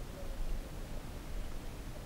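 Muffled low rumble of flowing stream water heard from a camera submerged in the stream.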